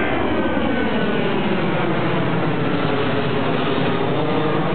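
A steady engine drone whose pitch slowly dips and rises.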